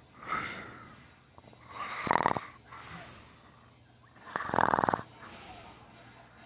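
A person in deep sleep snoring big time: two loud, rattling snores about two and a half seconds apart, with softer breaths between them.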